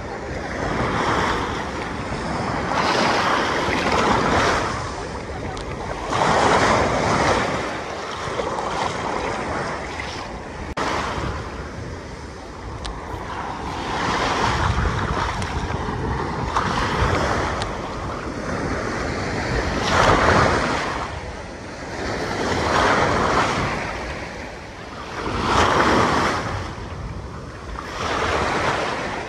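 Small sea waves breaking and washing in the shallows, surging and falling back about every two to three seconds, with some wind on the microphone.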